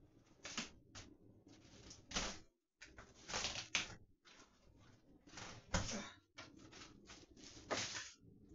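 Irregular rustling and crinkling as a blackout shade and its adhesive tape are handled, in a run of short scratchy bursts, the loudest about three and a half, six and eight seconds in.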